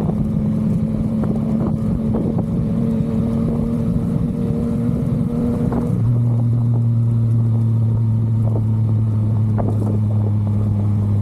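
Yamaha MT-09 three-cylinder engine running steadily while riding, heard from the bike with road and wind rush. About six seconds in the engine note shifts to a deeper, slightly louder steady hum.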